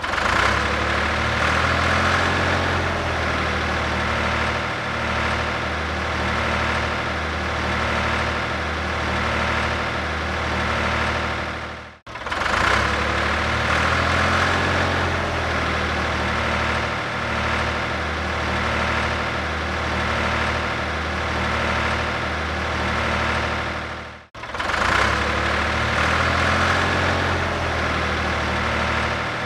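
Tractor engine running steadily at low revs with a low, even beat, a little louder at the start of each pass. The same roughly 12-second recording repeats, with a brief cut-out about 12 and again about 24 seconds in.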